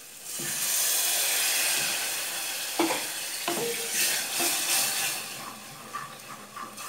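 A splash of water poured into a hot pan of tomato-paste sauce frying in margarine, setting off a loud sizzle that settles into a steadier frying hiss. A wooden spoon stirs the sauce, knocking against the pan a couple of times.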